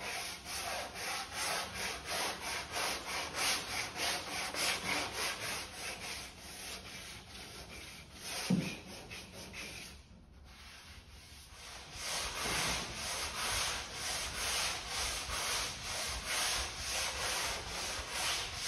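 Hand sanding with a long sanding board on a cedar-planked dinghy hull patched with fairing compound: rhythmic back-and-forth scraping strokes, about two or three a second. A single knock, the loudest sound, comes a little past eight seconds in, then there is a short break of about two seconds before the strokes resume.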